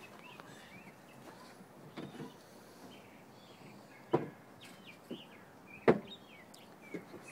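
A few separate sharp knocks and clicks, the two loudest about four and six seconds in, from hand work on metal in a car trunk, with birds chirping faintly.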